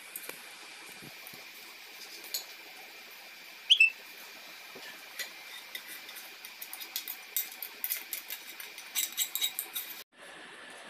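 A spoon scraping and clicking against a frying pan and a serving bowl as thick beetroot kichadi is scooped out. The clicks come thick and fast in the second half, with one short, sharp, louder sound about four seconds in.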